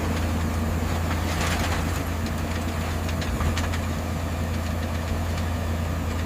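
Heavy diesel engine of road-paving machinery (asphalt paver or dump truck) running steadily with a deep, even hum and some faint rattle.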